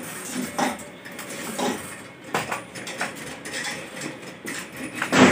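Scattered metallic clinks and knocks from a suspended ceiling-type air-conditioner indoor unit and its mounting hardware being handled as it is held up and positioned against the ceiling. The loudest knock comes near the end.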